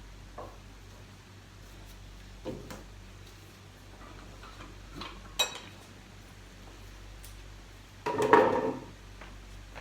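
Painting gear being handled: a few light knocks and a sharp clink, then near the end a louder, briefly ringing clatter, like a brush and paint tin or jar knocking together.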